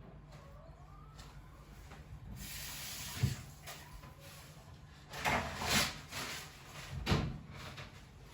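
Kitchen handling noises as pastries are assembled by hand: a few soft knocks and rustles.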